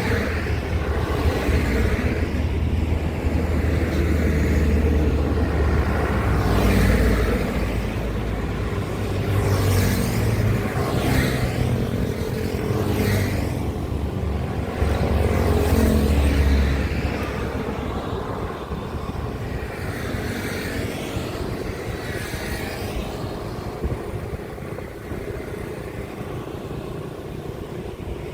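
Road traffic with heavy trucks passing one after another: a deep engine rumble and tyre noise swelling and fading as each vehicle goes by. It is loudest for the first half and eases off about seventeen seconds in.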